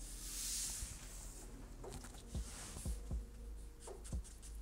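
Felt-tip marker drawing on paper: a longer stroke in the first second, then a string of short quick strokes and light taps.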